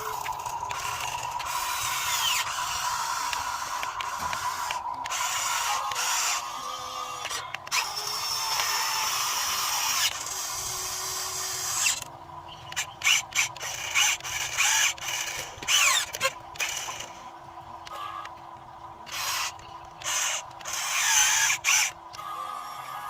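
Radio-controlled model Cat excavator's electric motors and gearing whining and grinding as it works, its pitch gliding up and down with the load. About halfway through it turns into short stop-start bursts as the controls are worked in quick moves.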